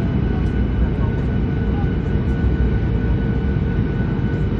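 A steady, loud low rumble with a few faint steady hums above it.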